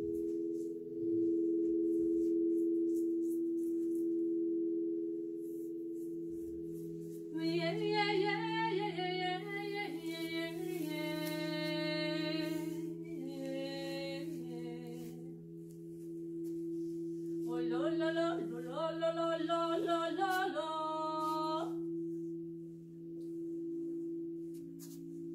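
Crystal singing bowls ringing in a steady drone of several held tones, with a wordless voice singing over it in two phrases of held and stepping notes, the first about a third of the way in and the second past the two-thirds mark.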